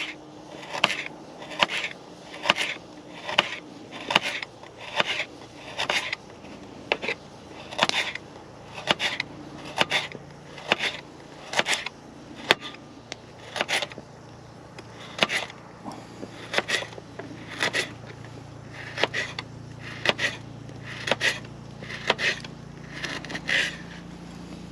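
Knife chopping a carrot on a board, sharp cuts at about one a second.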